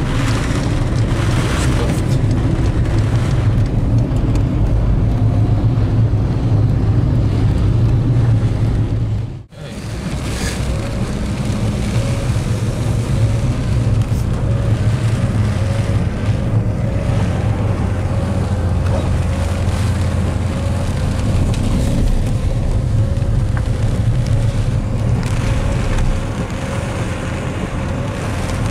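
Car interior noise while driving on wet roads: a steady low rumble of engine and tyres. It drops away sharply for a moment about a third of the way in, then resumes.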